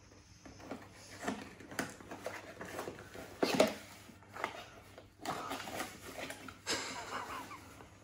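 A small cardboard gift box being opened by hand: irregular rustling and scraping as the flaps are pulled open, with a few sharper clicks, then a ceramic mug being drawn out of the box.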